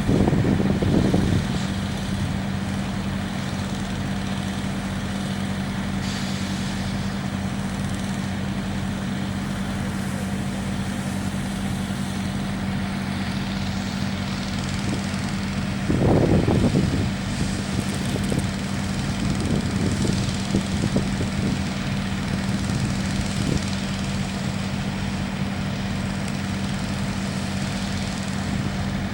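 Construction machinery engines running steadily with a constant low hum, with short louder surges about a second in and again just past halfway.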